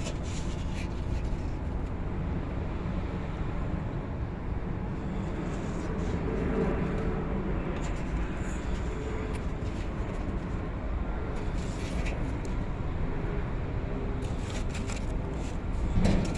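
Small fire of burning paper crackling now and then, over a steady low outdoor rumble, with a louder bump near the end.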